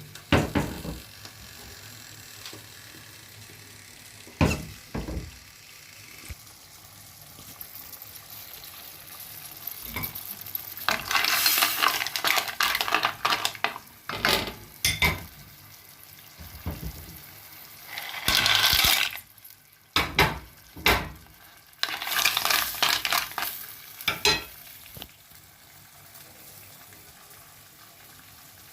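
Food frying in a pan, with several loud bursts of sizzling, stirring, and occasional knocks and clinks of the pan and utensils.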